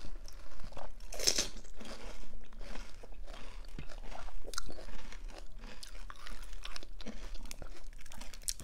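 Panipuri being bitten and chewed: crunches of the crisp puri shells among wet chewing, with the loudest crunch about a second in.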